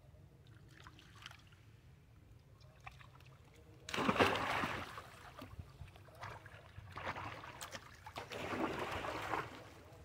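Water splashing and sloshing as macaque monkeys swim and paddle in a shallow pool, in two loud bouts: a short one about four seconds in and a longer one near the end.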